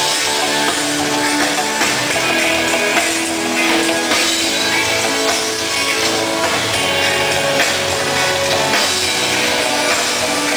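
Live rock band playing loud over a PA system, with electric guitar and drum kit.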